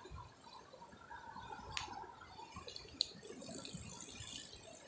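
Spinning fishing reel being wound in: a sharp click about three seconds in, then a steady high whirr of the reel turning.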